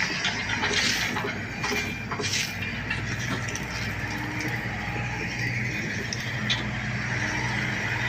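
Diesel engine of an SD16 crawler bulldozer running steadily while it clears brush, with a few sharp cracks in the first three seconds.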